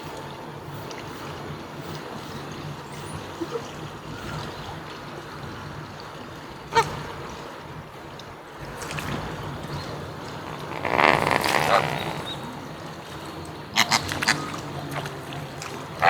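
Flamingos giving short honking calls over a steady low hum: a single call about seven seconds in, a longer run of calls around eleven seconds, and a few sharp calls near fourteen seconds.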